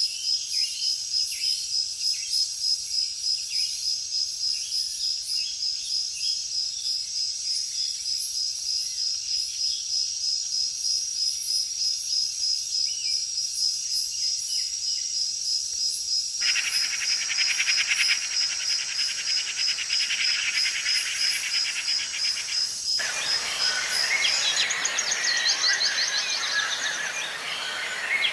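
Tropical forest ambience: a steady, rapidly pulsing high-pitched insect trill. A denser, buzzing insect chorus joins suddenly about two-thirds of the way in and stops just as suddenly. Varied bird chirps take over near the end.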